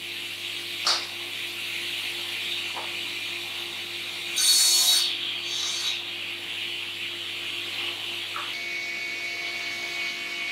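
Sliding panel saw running steadily. About four and a half seconds in, the blade crosscuts a timber board to length, a brief louder, high-pitched burst of about half a second. There are a couple of light knocks of wood on the saw table earlier, and the running sound changes near the end.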